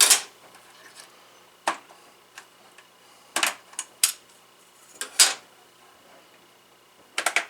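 Sharp plastic clicks and clacks of DDR4 RDIMM memory sticks being unlatched and pulled from their motherboard slots, about a dozen in uneven clusters, a few in quick pairs. The RAM is being cut down to one stick per CPU to find why the server won't post.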